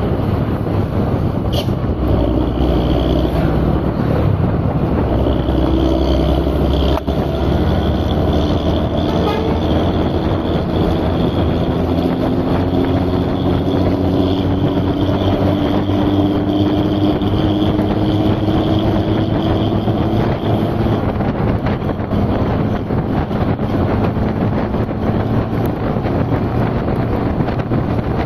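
An engine running steadily under a loud, continuous rush of wind or water noise. A hum in it rises slowly in pitch over about ten seconds in the middle.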